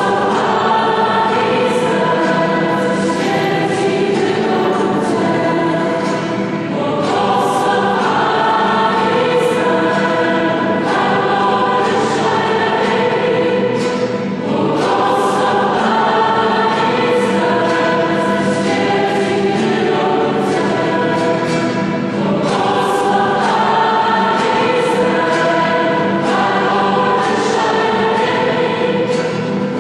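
A mixed church choir (schola) singing a Christian hymn, holding long notes in phrases that change pitch every few seconds.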